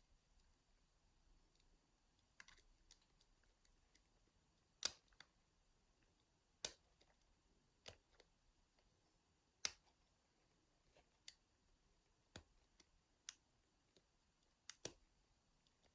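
Lock picks and tension wrench working inside a small Union padlock: irregular sharp metallic clicks and ticks, about a dozen spread out with pauses between.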